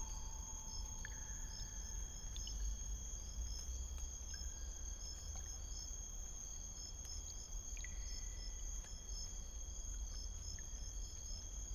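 Crickets chirping, short high chirps repeating about twice a second, over a steady low rumble.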